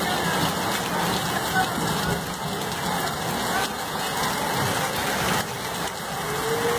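Torrential rain pouring down onto a flooded street, with running floodwater, making a steady, even hiss.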